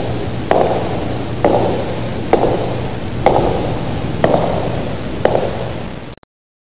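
Six evenly spaced heavy blows, about one a second, each a sharp crack with a short dull thud after it, over a steady low hum. The sound stops abruptly about six seconds in.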